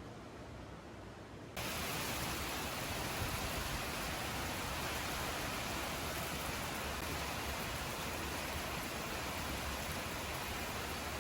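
A steady, even rushing hiss, like rain or running water, that starts abruptly about a second and a half in and holds level.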